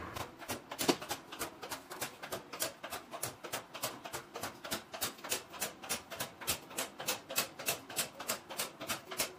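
Electric locks of a locker vending machine's compartments clicking open one after another in a rapid, even series, about four clicks a second, as all the lockers are released at once; one louder click about a second in.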